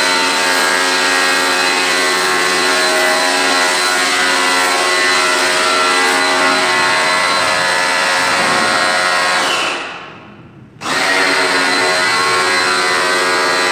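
Black & Decker PW1470TD electric pressure washer running steadily under load, its motor and pump loud, with the water jet spraying. About ten seconds in it winds down to a near stop, then starts again abruptly about a second later.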